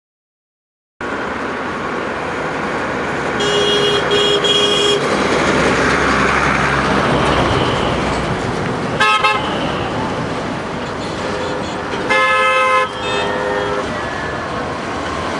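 Horns sounding in short blasts over a steady rumble of a crowded passenger train approaching, with city traffic noise around it. The sound cuts in abruptly about a second in, then come a few clipped blasts about three to five seconds in, a brief one near the middle, and the loudest blasts about twelve seconds in.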